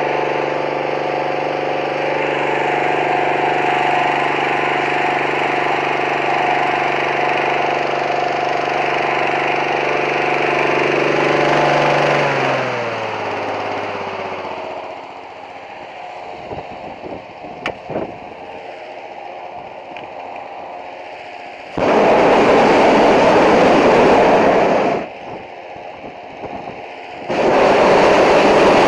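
Gas-engine balloon inflator fan running steadily, then slowing with a falling pitch and dying away about twelve seconds in. Then a hot air balloon's propane burner fires into the envelope in two blasts: the first about three seconds long, the second starting near the end and still going.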